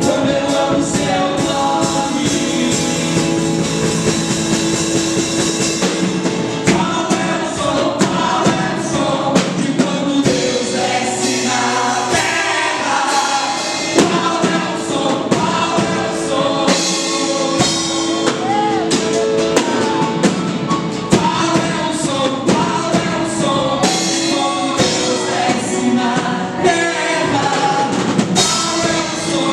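Worship music: singing over a band with drums, steady throughout.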